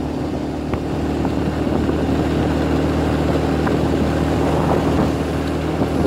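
A vehicle's engine running at a steady speed while travelling along a road: a constant hum with road noise.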